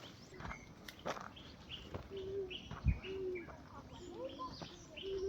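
Outdoor birdsong: many short high chirps from small birds, with a dove's low cooing notes repeated every second or so. A single dull thump comes just before three seconds in.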